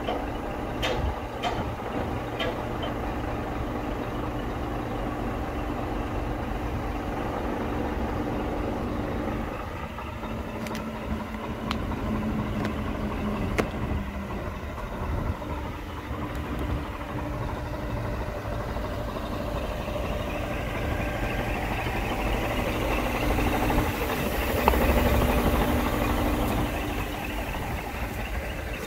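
Diesel engine of a Scania P 420 8x4 truck running steadily while its Hiab 16TM loader crane boom is worked, the engine note shifting a couple of times and swelling near the end.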